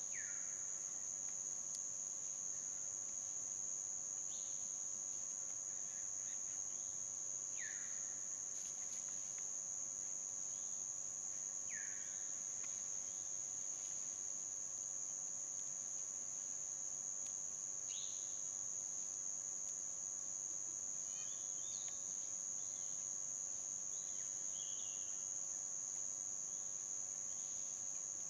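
Steady high-pitched insect drone throughout, with short downward-sliding bird calls every few seconds.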